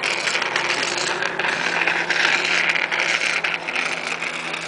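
Jet ski running at speed across the water: a steady engine drone under a constant hiss.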